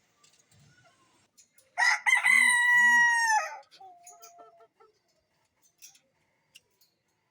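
A rooster crows once: a single call of about two seconds, held on one pitch and dropping at the end, followed by a few soft clucks.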